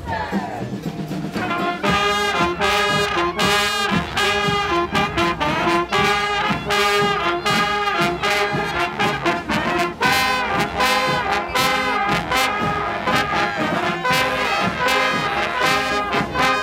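Live brass band of trumpets and trombones playing a lively, rhythmic tune; the full band swells in about two seconds in.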